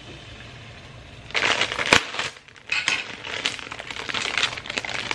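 Plastic ramen packet crinkling and rustling as it is handled and opened, in irregular crackly bursts, with one sharp click about two seconds in.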